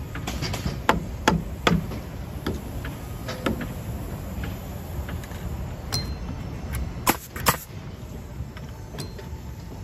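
Nails being driven into a wood wall frame: a string of sharp, irregularly spaced bangs, three in quick succession about a second in and two loud ones close together late on, over a steady low site rumble.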